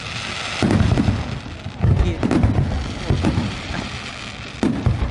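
Fireworks display: aerial shells bursting in a string of deep booms, about one a second, each rumbling away. A hissing crackle comes before the first boom.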